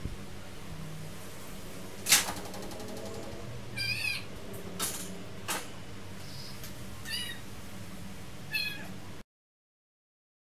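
Domestic cat giving three short, high meows, spread through the clip, amid sharp knocks and rattles of a wire cat cage as a cat climbs it, the loudest knock about two seconds in. The sound cuts off suddenly near the end.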